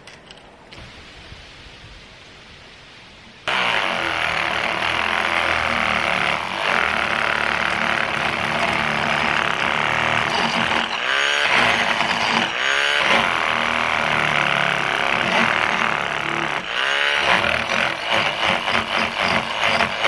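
Parkside PAMFW 12 D4 12V cordless oscillating multi-tool running with its scraper blade, scraping old paint off a wooden board. It starts suddenly about three and a half seconds in after a quiet stretch, and its pitch dips and recovers about three times.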